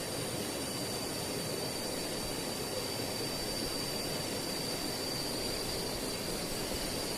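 Steady outdoor background: a continuous even rushing noise with a thin, constant high-pitched whine held above it.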